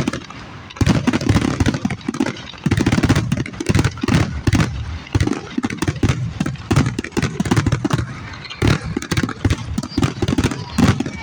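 Fireworks display going off as a rapid, irregular run of bangs and crackles, several a second, with a muddy, distorted low rumble between them.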